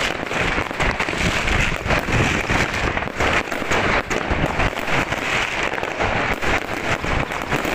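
Many fireworks and firecrackers going off at once: a dense, unbroken crackle of overlapping bangs.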